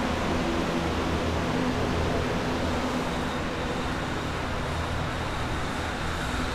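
Water-damage drying equipment, floor air movers (blower fans), running steadily: an even rush of air with a low hum underneath.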